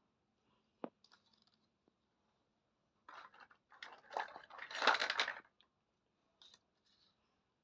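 Hands handling small toy kitchen pieces: a sharp click about a second in, then a few seconds of rustling and scraping, loudest around five seconds in, and a couple of faint ticks near the end.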